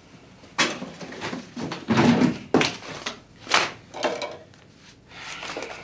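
Several knocks and thuds of office furniture being handled: a desk chair pulled out and sat in and things on a wooden desk moved, the loudest about two seconds in. A softer rustle follows near the end.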